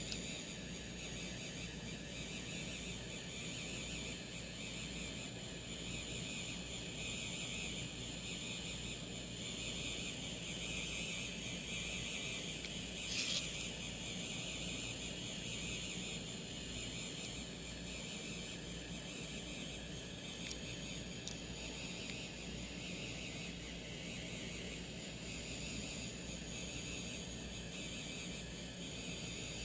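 3D printing pen running while drawing: its small filament-feed motor and fan give a steady whir with a high-pitched edge, with one short click about halfway through.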